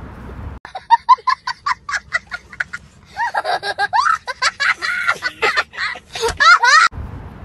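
A young child laughing hard: a quick run of high-pitched ha-ha bursts, then longer high laughs that glide up and down. The laughter starts suddenly about half a second in and cuts off suddenly near the end.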